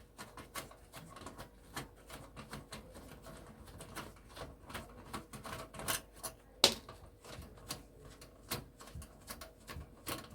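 Many quick, irregular small clicks and ticks of hand tools working screws loose from a projector's plastic and metal housing, with one louder click about six and a half seconds in.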